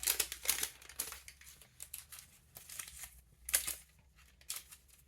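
A collectible card pack's wrapper being torn open and crinkled by hand: irregular crackling, loudest about half a second in and again around three and a half seconds in.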